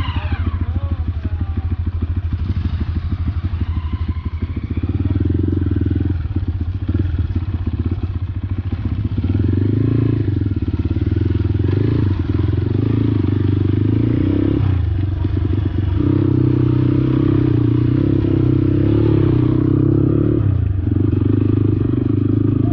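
Motorcycle engine running under way, its level and pitch shifting with the throttle. It gets louder about nine seconds in and again about sixteen seconds in, with brief dips in between.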